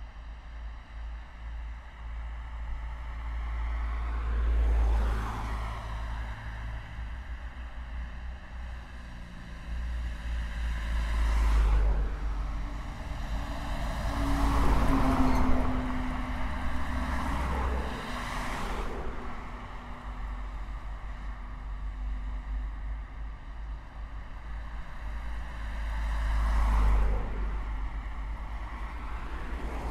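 Dense road traffic: a constant low rumble of engines and tyres with vehicles passing one after another, the loudest swells about 5, 12, 15 and 27 seconds in. A vehicle passing around the middle carries a humming tone that drops a little in pitch as it goes by.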